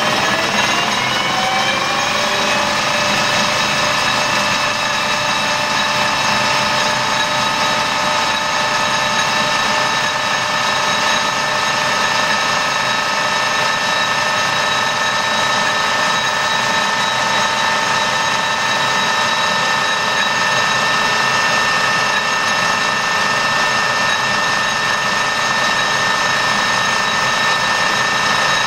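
Colchester Student lathe running under power, its headstock gears whining. The whine rises in pitch over the first few seconds as the spindle comes up to speed, then holds steady. This is the first run with the headstock freshly refilled with oil.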